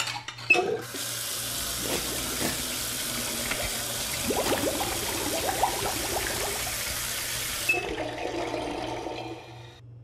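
Water running from a kitchen tap into a sink, with splashing. It starts about a second in and stops about two seconds before the end.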